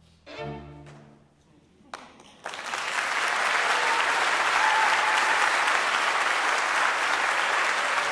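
A string ensemble of violins, cello and double bass plays a short final chord about half a second in that dies away. After a brief silence, audience applause breaks out about two and a half seconds in and carries on steadily.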